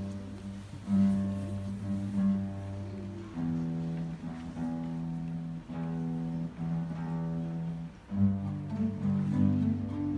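Ensemble of classical guitars playing a piece together: held chords over a low bass line, changing every second or so. The sound drops briefly about eight seconds in, then the parts come back in with a fuller bass.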